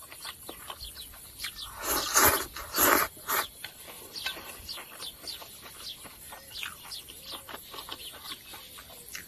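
Noodles slurped in two loud pulls around two to three seconds in, then chewing with many small wet clicks and smacks.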